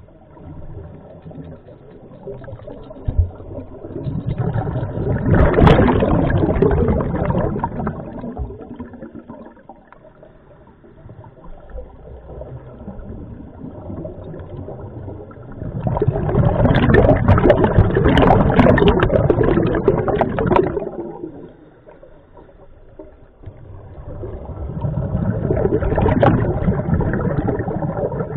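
Scuba diver's breathing heard underwater through the regulator: three long exhalations of bubbling, about ten seconds apart, with quieter stretches between them.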